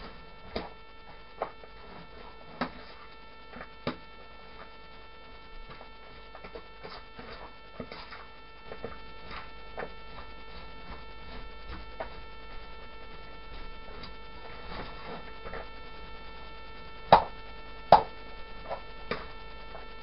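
Shredded coleslaw being tossed by hand in a bowl: irregular light clicks and taps, with two louder knocks near the end, over a steady electrical hum.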